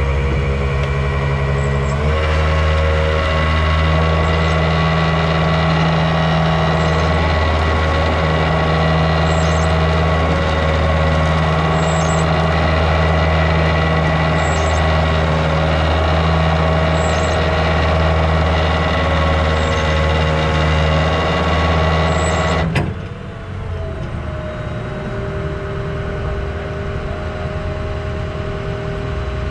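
Rollback tow truck's engine held at raised revs to drive its winch as the winch cable drags a stuck pickup out of the mud, a steady drone with a steady whine over it. The revs step up about two seconds in, and about 23 seconds in the engine drops suddenly to a lower idle with a short click.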